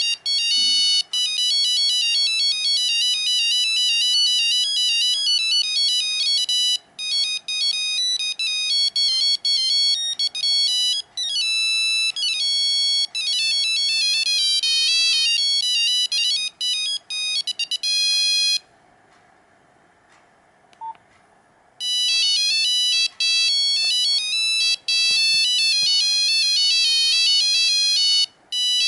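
Nokia 5125 mobile phone playing its original monophonic ringtones: quick high-pitched beeping melodies, one note after another. About two-thirds of the way through they stop for some three seconds, then a tune starts again.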